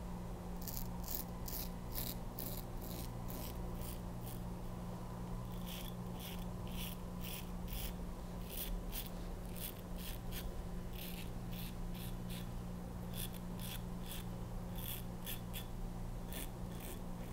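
Soluna open-comb safety razor with a KAI blade scraping through lathered stubble on the neck and chin: runs of short strokes, about two a second, broken by brief pauses.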